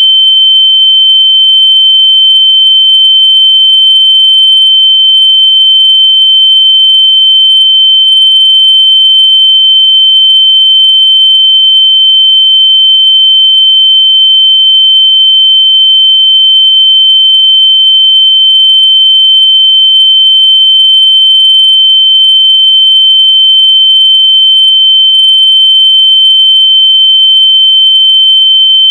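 A single loud, high-pitched electronic tone, held steady without a break, played so that lost AirPods will sound and can be found by ear.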